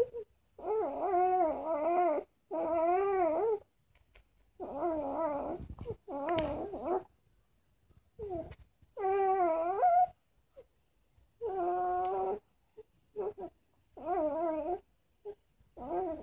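A baby vocalizing in a string of drawn-out calls, each about a second long with a wavering pitch, separated by short pauses.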